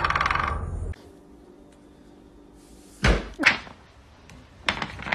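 Woodpecker drumming on a hollow bamboo pole, a fast, even roll of ringing taps that stops about a second in. Later come two loud thumps and a few sharper knocks near the end.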